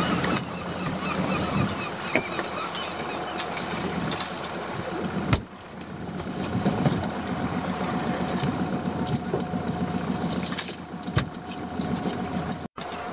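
Small boat's engine idling steadily, with scattered knocks and clatter of rope and gear being handled as a lobster pot is hauled aboard. The sound breaks off abruptly about five seconds in and again near the end.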